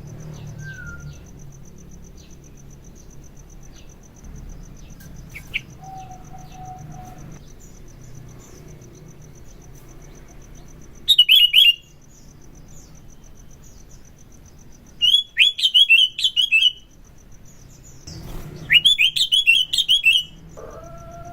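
Sooty-headed bulbul (kutilang) singing: three loud bursts of fast, repeated chattering notes, about 11, 15 and 19 seconds in. Fainter single chirps come between the bursts.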